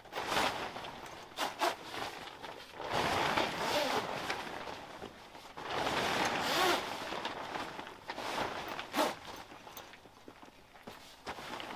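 Heavy canvas walls of an ARB awning room rustling and scraping as they are pulled up and fastened to the awning, in four long bursts with a few sharp clicks between them.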